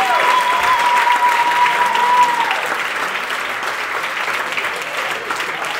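Audience applauding, with one long held high note over the clapping that drops away about two and a half seconds in. The clapping eases off a little in the second half.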